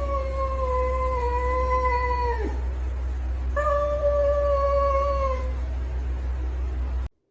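A cat yowling: two long, drawn-out caterwauls, the first sliding down in pitch at its end, the second shorter, over a steady low hum. The sound cuts off abruptly near the end.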